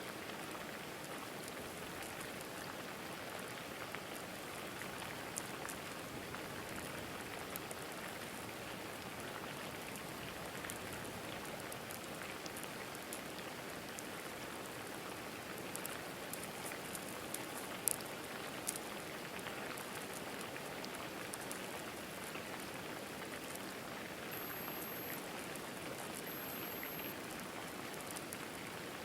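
Steady rain falling on and around the nest camera, a continuous hiss dotted with the ticks of drops striking, a few sharper ones a little past halfway.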